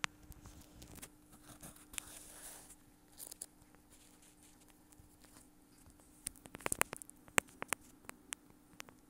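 Handling noise of a phone camera and a fork in a metal sardine tin: scattered light clicks, taps and rustles, with a quick run of sharp clicks about six to seven and a half seconds in.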